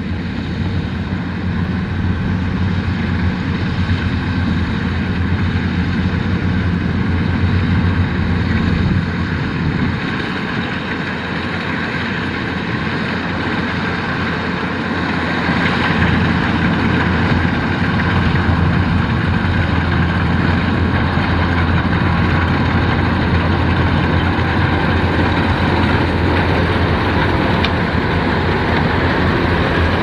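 Kubota rice combine harvester's diesel engine running steadily while the machine cuts and threshes standing rice: a deep, even drone with a mechanical whir above it. It grows somewhat louder about halfway through.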